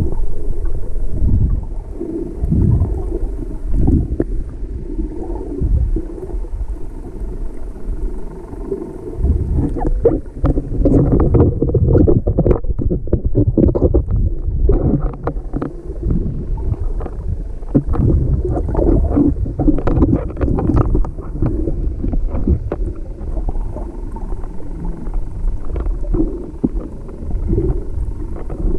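Muffled underwater water noise picked up through a GoPro's waterproof housing: a constant low rumble of moving water. From about ten seconds in, for roughly twelve seconds, it is broken by many sharp clicks and knocks.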